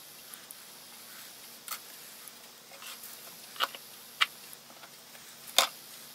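Handling noise from fitting wooden spars to a model ship hull: about four short, sharp clicks and taps, the loudest near the end, over a faint steady hum.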